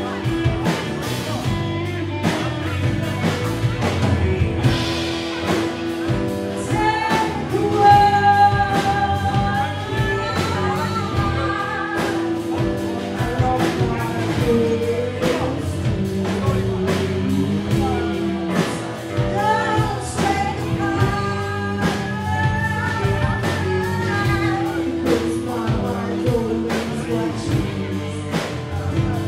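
Live rock band playing a song on drum kit, bass, electric guitar and acoustic guitar. A woman sings lead from about seven seconds in, over a steady drum beat.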